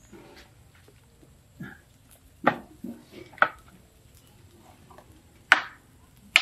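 Sharp cracks and knocks at a wood fire where bamboo tubes of sticky rice are roasting, as a long stick pokes among the tubes and firewood. There are four loud ones in two pairs, each pair about a second apart, the first pair around the middle and the second near the end, with a fainter knock before them.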